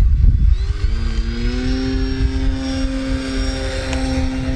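Electric motor and propeller of an E-flite Ultimate 3D RC biplane droning in flight. The pitch rises about a second in and then holds steady, over a low wind rumble.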